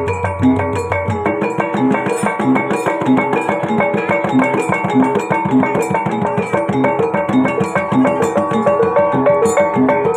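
Javanese gamelan-style kuda lumping accompaniment: tuned metal percussion and drums playing a fast, steady repeating pattern.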